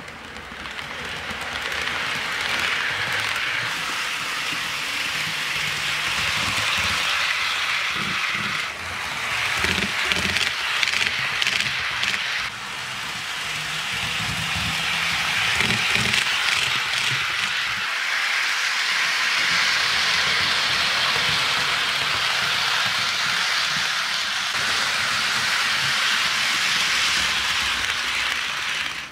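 HO scale model freight train rolling along the track: a steady rolling hiss of small metal wheels on the rails, with scattered clicks and a faint low hum.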